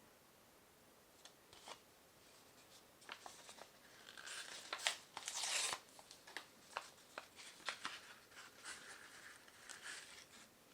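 Soft crinkling and tearing of a wrapper being opened by hand, with small scattered clicks; the loudest rustle comes about halfway through.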